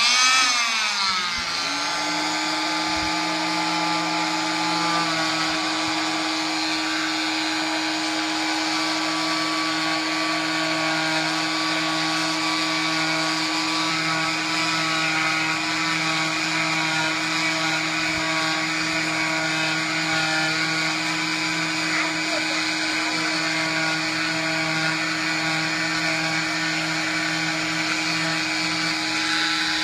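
Electric oscillating cast saw with a dust-extraction vacuum, cutting a fiberglass leg cast open. The motor spins up in a rising whine over the first couple of seconds, then runs at a steady high pitch as the blade works along the cast.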